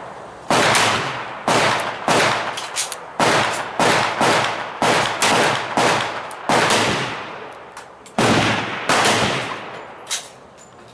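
Handgun gunfire: about ten sharp shots at irregular intervals, one to two seconds apart, each with a long echoing tail, the last one near the end fainter.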